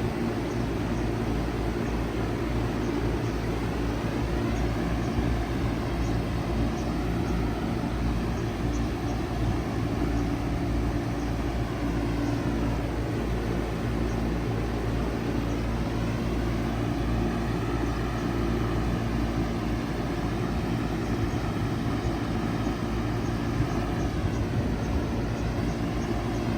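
2000 Bard 4-ton wall-hung heat pump running steadily in cooling mode: an even compressor hum under the rushing air of the outdoor fan.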